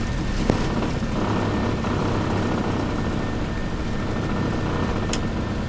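Flight-deck noise of a Boeing 737-700 at takeoff thrust through rotation and liftoff: a steady rumble of its CFM56-7B turbofans and the rushing air, with one sharp click about half a second in.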